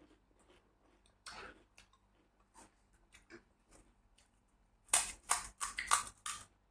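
Close-up eating sounds: faint mouth and chewing noises, then a quick run of loud, crisp crunches about five seconds in as a crunchy fried snack is bitten and chewed.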